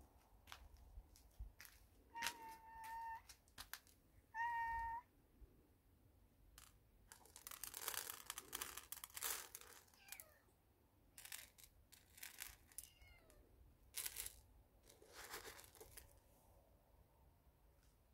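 A cat meowing twice in short, level calls, about two and four seconds in. After that come rustling and a few sharp clicks as dry kibble is handled and dropped onto concrete.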